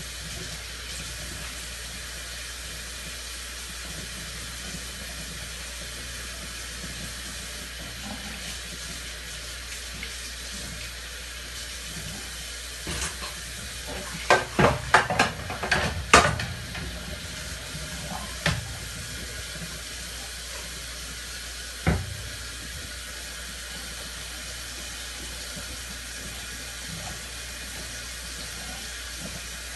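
Dishes being washed by hand at a sink: a steady hiss of water, with a quick run of sharp clatters of crockery about halfway through and two single knocks a little later.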